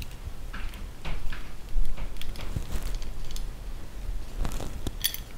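Hand tube-flaring tool being handled and clamped onto a 1/4 inch hydraulic hard line: scattered small metal clicks and scrapes, with a few sharp metallic ticks near the end.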